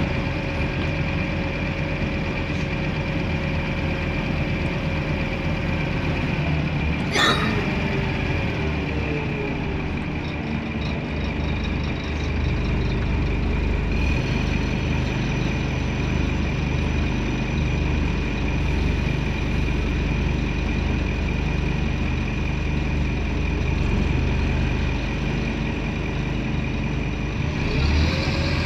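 Scania N230UD Omnidekka double-decker bus heard from inside, its diesel running steadily in slow traffic with a constant high whine over it. A brief sharp burst of noise comes about seven seconds in. The engine pulls harder from about twelve seconds.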